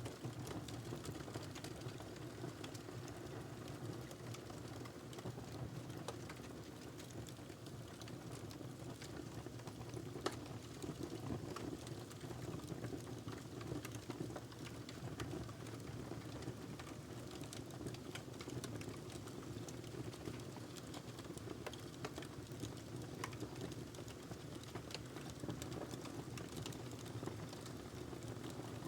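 Wood fire in a fireplace crackling, with scattered sharp pops over a steady low rush of burning; one louder pop about ten seconds in.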